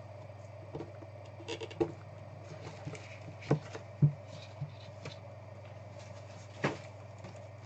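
A cardboard trading-card hobby box being handled and opened by hand: scattered light taps and knocks of the box and its lid, the loudest about four seconds in, over a faint steady hum.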